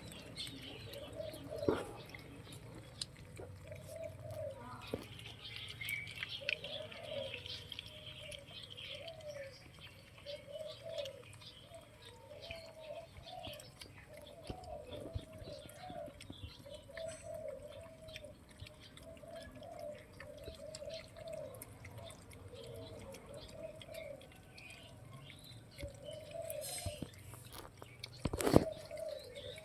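Puppies squeaking and whimpering again and again in short, high little calls while eating, with small wet clicks of lapping and chewing. A sharp knock sounds near the end.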